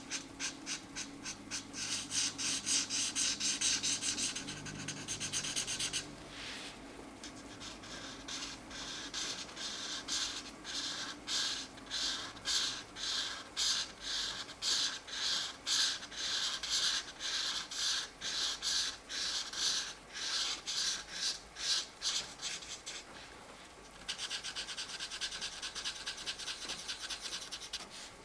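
Felt-tip marker nib scratching on colouring-book paper in quick back-and-forth strokes, with a short change in the stroke pattern about six seconds in and again near the end.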